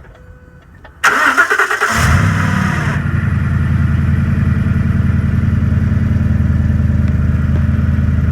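Ford F-150 started: the starter cranks noisily for about a second, then the engine catches and settles into a steady idle. The starter's overrunning clutch was diagnosed as wearing out, the cause of an intermittent whirring noise.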